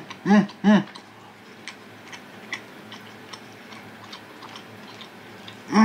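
A man chewing a mouthful of stir-fried chicken-and-eggplant rice bowl, with faint small clicks of chewing. Right at the start come a few short hummed 'mm' sounds that rise and fall in pitch, and one more at the very end.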